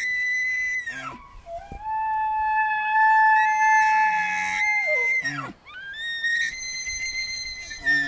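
Deer stags bugling: long, high whistling calls that each slide up, hold a steady pitch, then drop away, with several calls overlapping.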